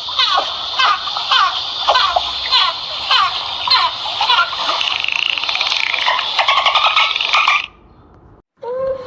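A dense chorus of many small animals chirping at once: overlapping, high, downward-sweeping chirps that cut off suddenly near the end.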